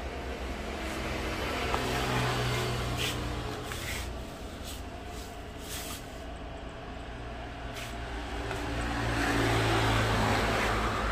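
Road traffic: two motor vehicles pass by in turn, their engine sound rising and fading, the first about two seconds in and the second near the end. A few light knocks come in between.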